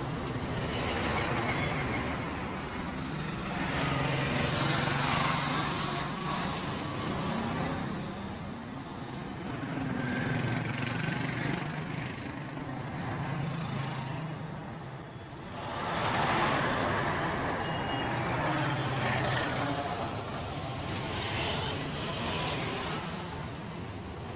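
Road traffic passing, rising and falling in waves as vehicles go by.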